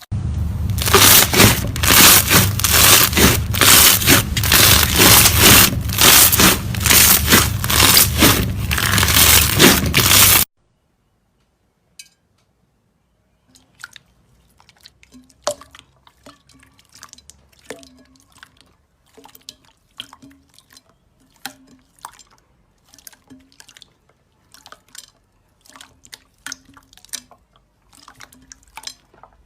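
Slime being squeezed and poked, crackling, popping and squelching. For the first ten seconds it is very loud and close, with crunchy squishes about twice a second, then it cuts off suddenly. After that it gives only faint, scattered clicks and pops.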